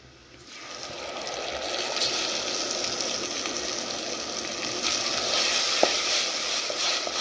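Blended tomatoes poured into a hot pan of fried onions and spices, sizzling. The sizzle builds over the first two seconds and then holds steady, with a single click about six seconds in.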